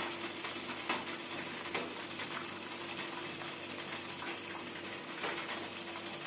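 Water boiling in a steel steamer pot, a steady bubbling hiss, with a few faint knocks as dough rolls are set down on the perforated steamer plate.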